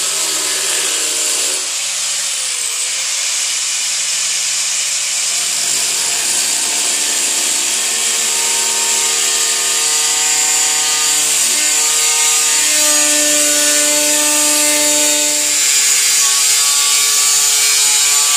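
Angle grinder with a thin cutoff wheel running and cutting through the sheet-steel cab corner of a 1984 Chevy pickup, a steady loud grinding hiss with several ringing tones that shift in pitch every second or two.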